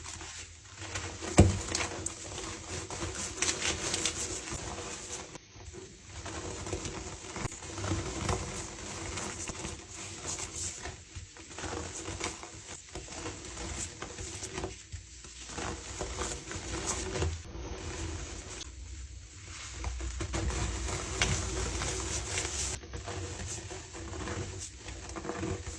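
Blocks of dyed gym chalk crushed and crumbled by hand: dry crunching and crackling in uneven bouts, with short pauses between them.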